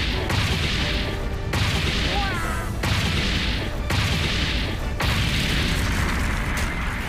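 Cartoon battle sound effects: a series of heavy booms and crashes, about one a second, with a brief whooshing glide about two seconds in, as sword strikes and a blast throw up dust.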